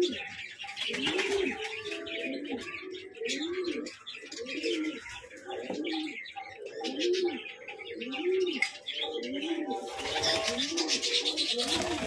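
Domestic pigeons cooing over and over, each coo a low call that rises and falls, several birds overlapping. Higher chirping from small birds runs through it, thickening near the end.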